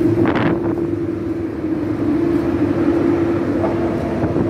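Steady city road traffic noise with a constant droning hum, and a short hiss about half a second in.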